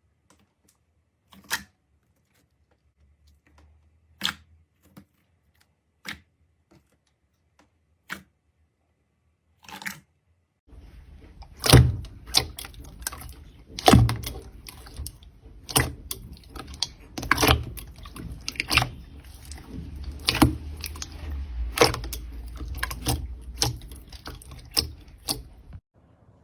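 Slime being squeezed and pressed by hand: a few separate sticky pops and clicks with silence between them. From about eleven seconds in comes a busier run of wet pops, crackles and squelches, ending a little before the close.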